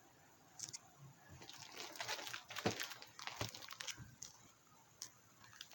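Faint rustling and crinkling with a few light knocks, from a boxed firework cake being handled and turned over in the hands. It starts about half a second in and dies away after about four seconds.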